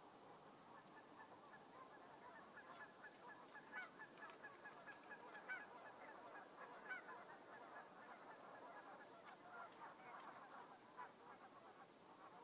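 Faint, distant chorus of many short honking animal calls, overlapping, with a few louder calls standing out now and then.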